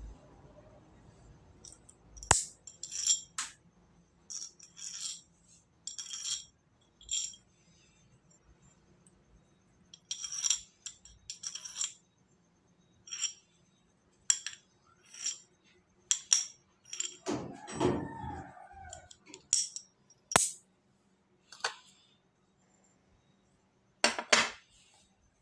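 A large copper coin clinking as it is tapped and handled, with about twenty sharp metallic clicks at irregular intervals, each ringing briefly.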